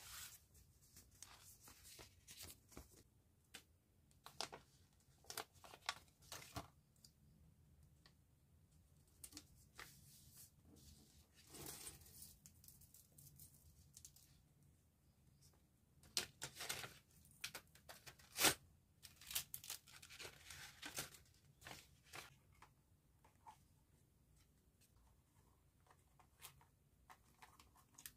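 Faint rustling and scattered light clicks of hands handling paper packaging and beaded jewelry, with one sharper click about 18 seconds in.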